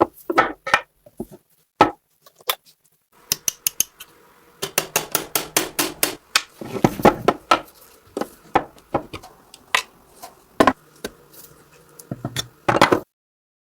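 Metal parts and tools clicking and clinking in hand repair work on a submachine gun: scattered sharp clicks, then a fast run of clicks in the middle, more spaced clicks after, ending with a louder cluster that cuts off suddenly.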